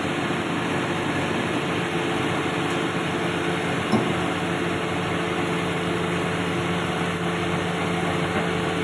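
A heavy-equipment diesel engine running steadily at a constant speed, with one short knock about four seconds in.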